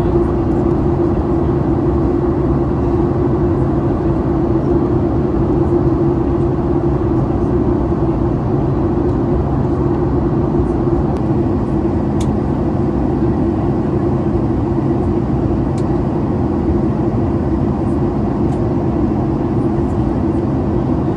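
Steady cabin drone of a Boeing 737 MAX 8 in flight, heard at a window seat beside its CFM LEAP-1B engine: engine and airflow noise with a constant low hum.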